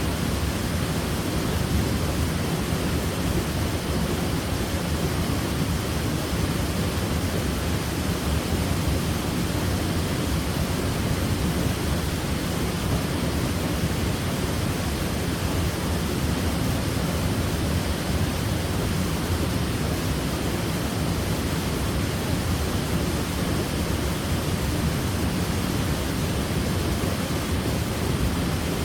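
Waterfall: water falling and splashing in a steady, unbroken rush with a deep low rumble.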